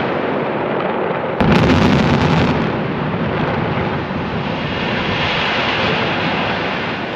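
Explosive demolition of a high-rise tower block: blast noise already running, a second sudden loud blast about a second and a half in, then a long rumble of the building coming down that slowly fades.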